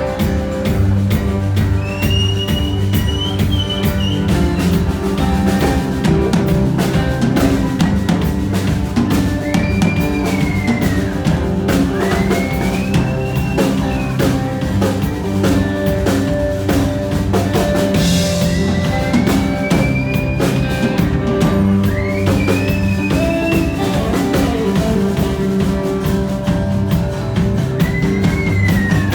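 Rock band playing an instrumental passage: drum kit and bass keep a steady groove under guitar, while a high lead line slides and bends between notes again and again.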